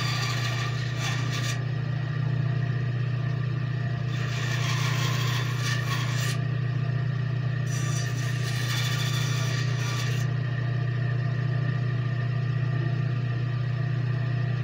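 Bandsaw running with a steady hum, its blade cutting into wood in three spells of a couple of seconds each, with a hissing rasp each time the wood is fed into the blade.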